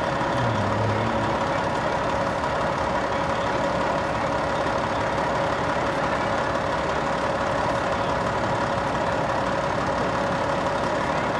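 Ladder fire truck's engine idling steadily, with a constant whine over the running.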